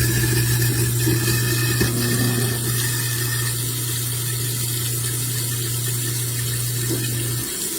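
Kitchen garbage disposal running with a steady motor hum, grinding a load of ice and rock salt under running cold water to scour its chamber, then switched off near the end.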